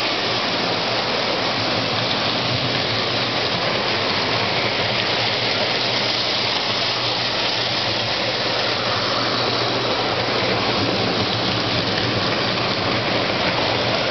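Postwar Lionel 675 toy steam locomotives running on tinplate O27 track: a steady rolling rumble with a low motor hum underneath.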